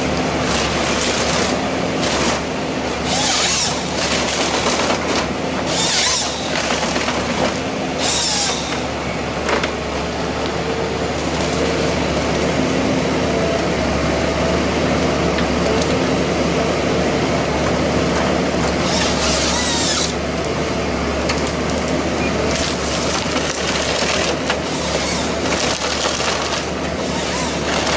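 Heavy machinery running steadily with a low hum, broken by several short bursts of hissing.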